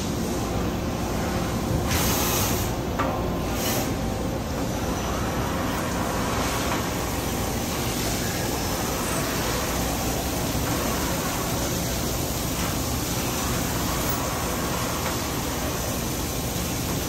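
Makino MC-108 CNC horizontal machining center running a cut on a fixtured part under flood coolant: steady machine noise with the hiss of coolant spraying. Two short bursts of high hiss stand out about two and four seconds in.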